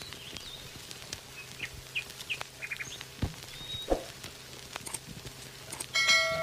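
Small birds chirping in short, quick calls over a steady outdoor background. Near the end a bright ringing chime sounds, the loudest thing here.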